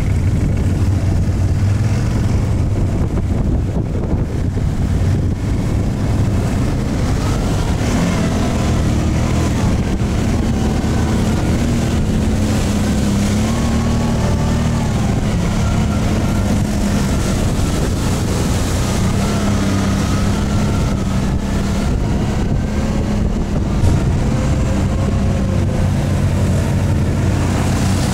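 Quad bike (ATV) engine running under way, its pitch rising and falling with the throttle.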